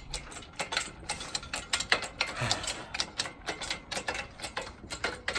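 Rapid, uneven metallic clicking and rattling, several sharp clicks a second, from a shop engine hoist and its lifting chain being worked.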